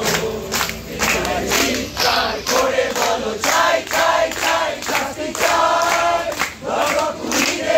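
A crowd of voices singing together in unison, in short rhythmic phrases.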